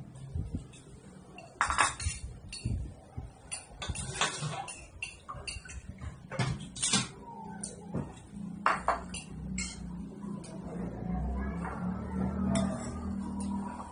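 Cutlery clinking against dishes during a meal, with a handful of sharp clinks a second or two apart over a low steady hum.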